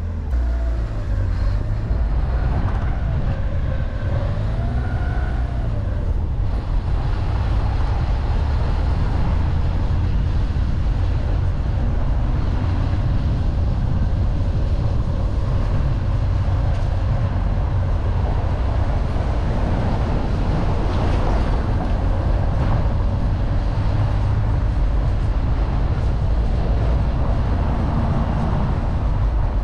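Car on the move: a steady low engine and road rumble, with the engine pitch wavering during the first few seconds.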